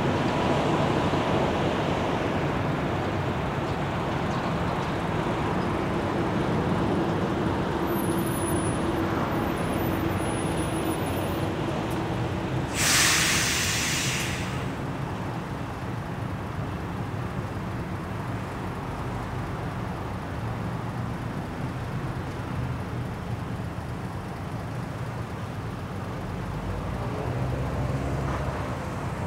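Road traffic running steadily, with engines and tyres. About halfway through, a heavy vehicle lets out a brief loud hiss of released air.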